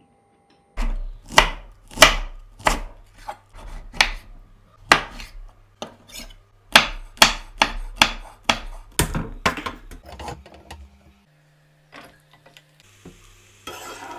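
A kitchen knife chopping vegetables on a wooden cutting board: a run of sharp, irregular strikes, about two a second, that stops about nine and a half seconds in. After that there are only faint, low sounds.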